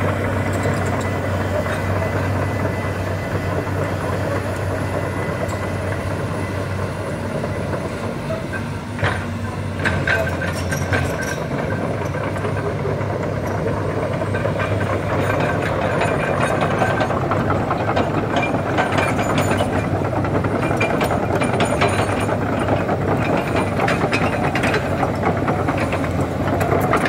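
Excavator's diesel engine running under load as it spreads and levels fill soil, with a steady low hum that shifts about eleven seconds in. Through the second half, many short knocks and rattles come from the machine as it works.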